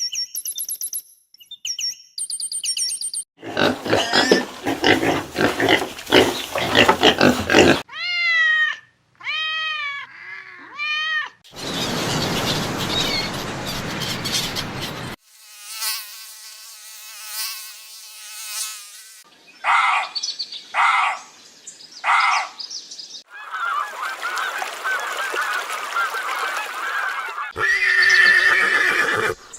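A rapid series of different animal and bird calls, one clip after another, each a few seconds long and cutting abruptly to the next: high repeated chirps at the start, then noisy calls, three rising-and-falling pitched calls about eight seconds in, and more calls through to the end.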